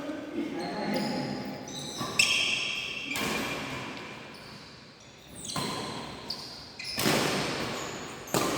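Badminton rackets striking a shuttlecock in a rally: several sharp hits one to two seconds apart, each echoing in a large hall, with players' voices between them.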